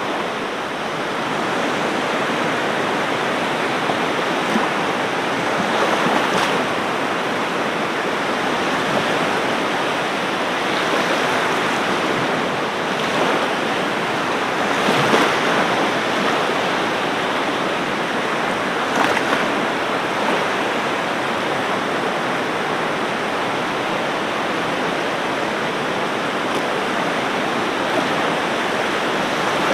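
Ocean surf: a steady wash of breaking waves, swelling briefly a few times as waves break.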